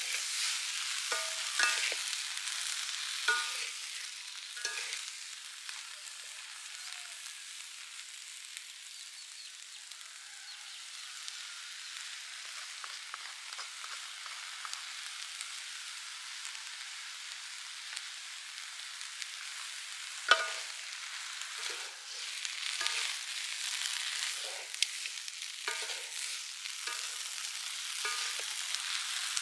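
Small prawns frying in a metal wok with a steady sizzle, stirred and tossed with spatulas that scrape and knock against the pan now and then. The loudest is one sharp knock about two-thirds of the way through.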